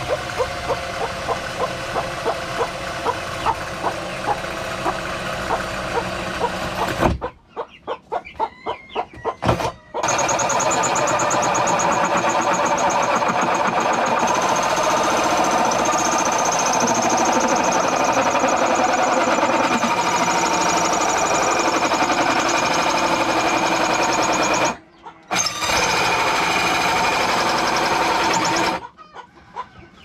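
Handheld power drill spinning a round rotary head against a wooden plank, running with a steady high whine. About seven seconds in it stops and gives a few short bursts, then runs on steadily, with another brief stop near the end.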